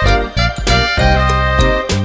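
Upbeat background music with a steady beat and bright melodic notes.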